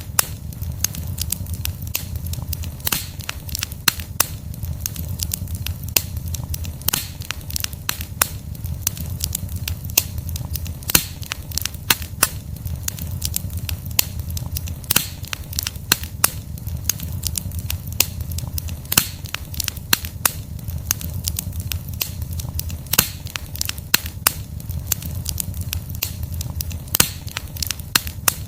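Wood campfire burning: the logs crackle and pop in a constant, irregular stream of sharp snaps over a steady low rumble of the flames.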